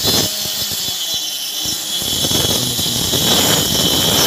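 Small hand-held electric circular saw running at full speed with a steady high whine as it cuts a notch in a plywood board. About halfway through, the cutting noise grows heavier and rougher as the blade bites further into the wood.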